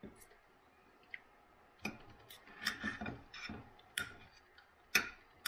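Knife and fork clicking and scraping against a plate while cutting food: scattered single clicks, with a busier run of them from about two to three and a half seconds in.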